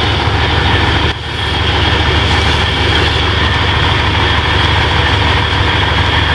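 Loud, steady drone of heavy machinery running, a low hum with a steady high whine over it. It dips briefly about a second in.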